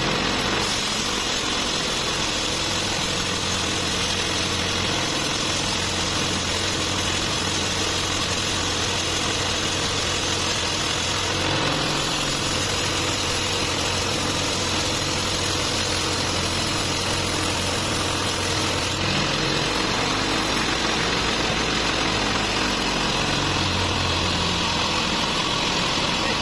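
Band sawmill running steadily and cutting lengthwise through a large trembesi (rain tree) log: a continuous mechanical drone with the rasp of the blade in the wood, and its low hum shifting slightly partway through.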